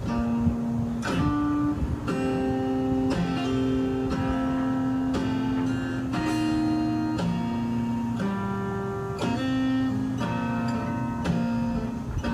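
Background music: acoustic guitar, plucked chords changing about once a second.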